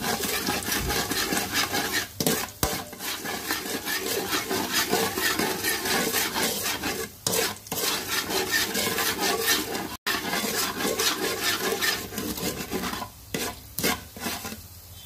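Metal spatula stirring and scraping chopped garlic and black pepper around an aluminium wok in sizzling oil, in quick repeated strokes with a few brief pauses.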